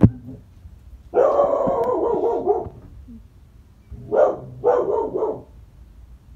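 A dog barking: a longer run of barking about a second in, then three short barks around four to five seconds in. A sharp thump right at the start is the loudest sound.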